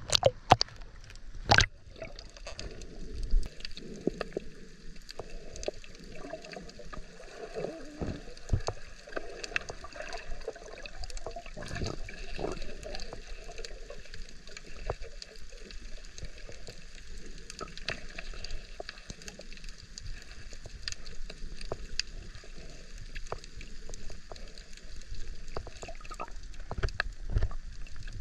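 Underwater sound picked up by a diving camera: muffled water movement and gurgling bubbles, with many small scattered clicks and crackles. A few sharp splashes come in the first two seconds as the camera goes under.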